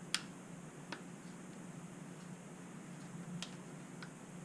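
A few sharp, light clicks as a small part is worked between the fingers, the first the loudest, over a steady low hum.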